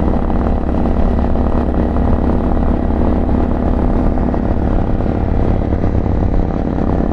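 2024 Harley-Davidson Pan America's Revolution Max 1250 V-twin running at steady revs under way, heard from the rider's position.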